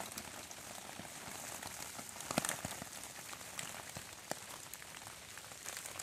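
Rain falling on wet leaf litter: a steady soft hiss with scattered sharp ticks of single drops, a few of them close together about two and a half seconds in.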